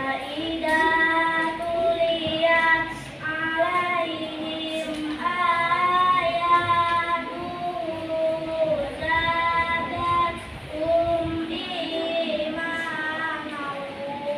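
A young girl's voice reciting the Qur'an in melodic tilawah style: long, drawn-out, wavering phrases with a few brief pauses between them.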